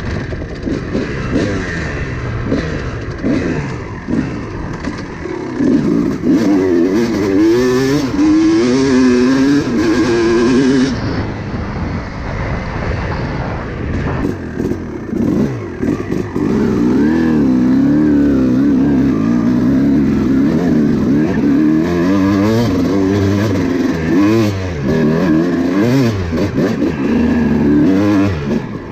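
Kawasaki KX250 two-stroke dirt bike engine being ridden, loud, its pitch rising and falling over and over as the throttle is opened and closed. It eases off about eleven seconds in, then revs up again.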